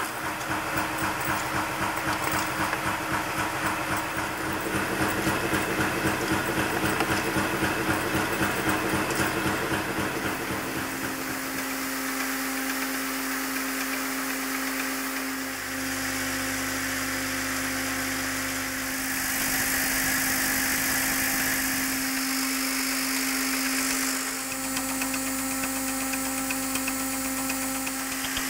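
Nail-making machine running at production speed: a fast, even clatter of strokes for about the first ten seconds, then a steady mechanical hum with held tones that changes abruptly a few times.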